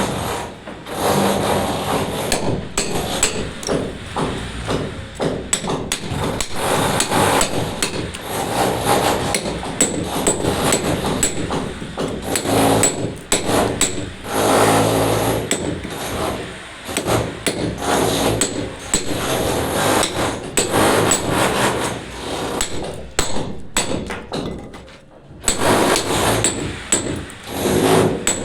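Hand hammer striking over and over in quick runs of blows, with a short pause a few seconds before the end.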